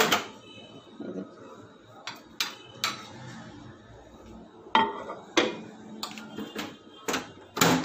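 Microwave oven door being opened and shut, with a ceramic plate set down on the glass turntable inside: a series of sharp clicks, knocks and a china-on-glass clatter. The loudest knock, near the end, is the door closing.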